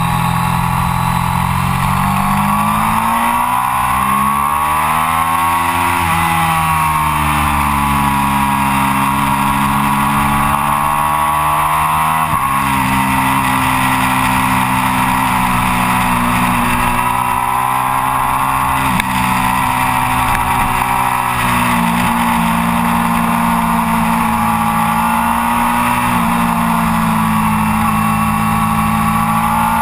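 Triumph Daytona 675's three-cylinder engine, fitted with an Arrow exhaust, running hard on track and heard from a camera mounted on the bike. Its pitch climbs and falls through the corners, and it jumps abruptly at gear changes, the first about twelve seconds in and twice more later on.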